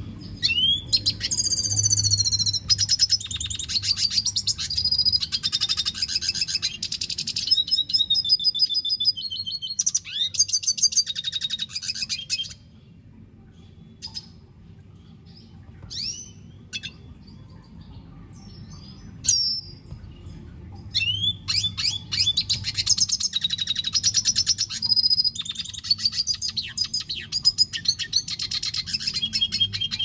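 Male red siskin singing: two long bouts of fast, high twittering and trilled phrases with gliding notes. Between them, from about 12 to 20 seconds in, it gives only a few short single calls.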